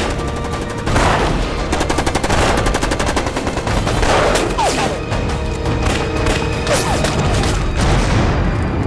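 Film battle sound effects: gunfire in rapid bursts, including a fast machine-gun burst, with heavier blasts, over a music score.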